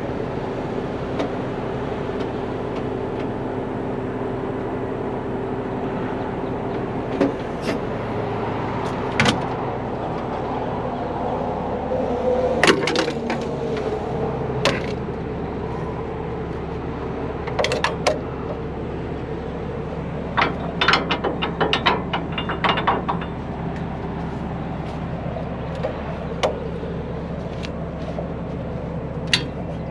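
Heavy-duty tow truck's diesel engine idling steadily, with scattered sharp metallic clanks and clicks of tow gear being handled at the underlift. The clanks come in a quick flurry about two-thirds of the way through.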